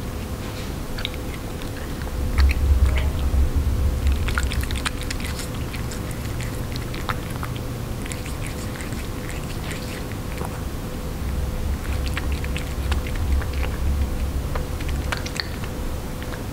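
Russian Blue cat eating canned salmon cat food off a hard surface, close up: many small wet clicks and smacks of licking and chewing. A faint steady hum runs underneath.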